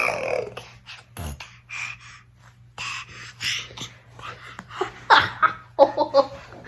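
A seven-month-old baby vocalizing close to the microphone: breathy grunts and huffs, then a quick run of short high squeals, bending up and down, about five seconds in.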